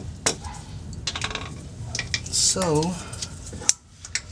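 Scattered sharp metallic clinks and knocks from the oil filter tool and ratchet on the oil filter as it is worked loose, with a short hiss about halfway through.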